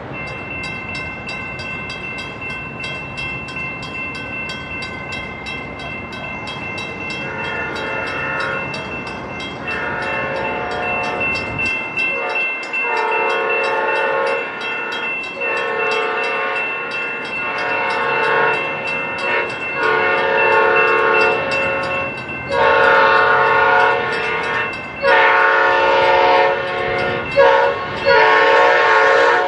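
Locomotive air horn of an approaching train sounding a long series of blasts. The blasts begin about a quarter of the way in and grow louder as the train nears.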